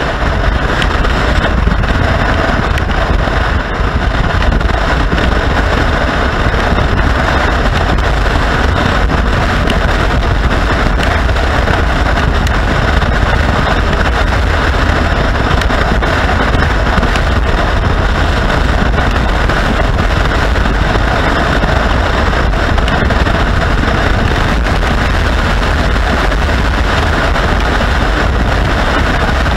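Motorcycle riding at a steady speed: loud, even wind rush over the microphone, mixed with engine and road noise.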